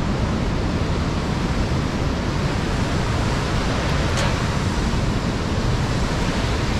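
Loud, steady rushing of whitewater, a mountain stream and waterfall pouring through a narrow rock gorge.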